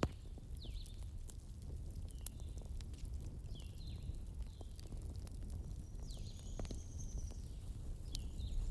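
Wood fire burning in a fireplace: a steady low rumble with irregular sharp crackles and pops. Short high chirps come and go over it, with a longer high thin tone about six seconds in.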